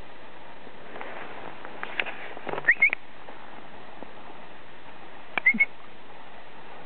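A person whistling to a dog: two short bursts of quick rising whistled notes, about three seconds apart.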